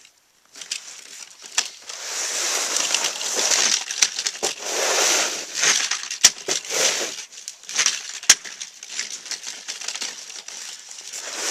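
Wheeled hand-pushed snow plow blade scraping along a concrete driveway, shoving and pitching snow in repeated swishing strokes, with two sharp clacks in the middle.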